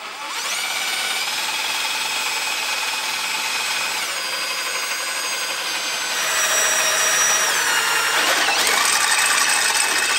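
Cordless drill with a step bit cutting holes in a metal plate held in a vise: a steady motor whine whose pitch dips a few times as the bit bites, getting louder about six seconds in.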